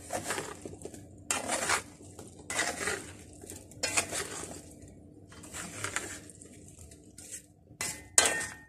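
A plastic spatula stirring a mayonnaise-coated salad in a nonstick pan. There are about seven separate stirring strokes, each a short scrape and squelch against the pan, with brief pauses between them.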